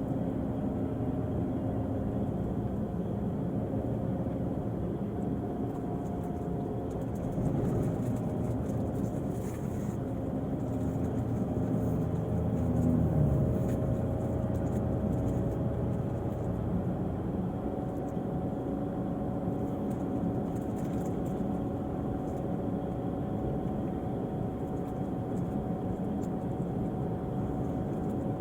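Diesel engine of an Irizar i6s coach on a Volvo chassis running steadily, its note rising briefly about halfway through before settling again.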